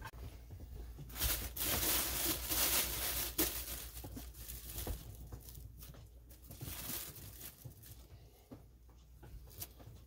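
Thin plastic bag crinkling and rustling as hands dig into it and scoop out loose fireweed petals, with small crackles throughout; loudest between about one and three and a half seconds in.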